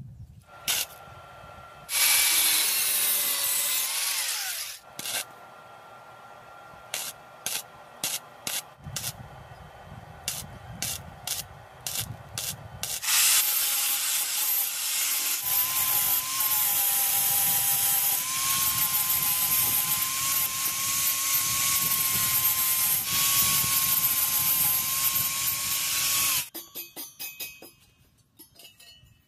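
Angle grinder with a grinding disc dressing welds on steel square tubing: a loud grind of about two seconds, then a string of short sharp touches, then one long continuous grind of about thirteen seconds with a steady whine that wavers slightly. It stops a few seconds before the end, leaving only small clicks.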